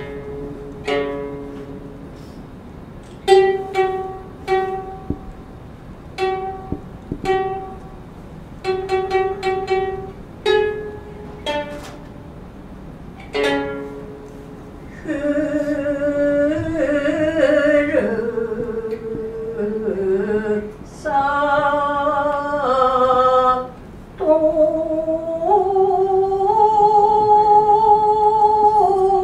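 Gidayu-style joruri music: a shamisen plays sparse, single plucked notes. From about halfway a chanter (tayu) sings long, wavering held notes that slide between pitches.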